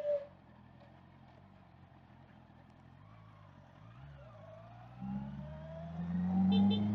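Honda CBR650R inline-four engine running quietly at low revs, then pulling away about five seconds in, its note rising steadily as it accelerates.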